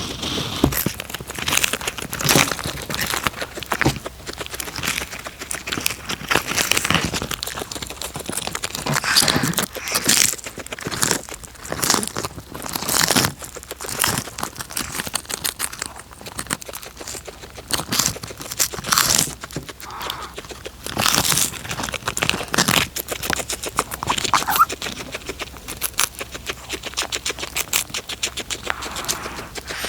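A cat chewing and crunching food close to the microphone: a continuous, irregular run of crunches and wet clicks.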